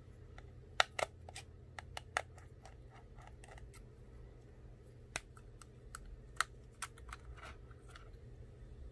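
Scattered light metallic clicks and taps of a precision screwdriver, tiny screws and a thin metal cover plate being worked loose inside an opened iPhone 8, the sharpest clicks about a second in and at about six and a half seconds.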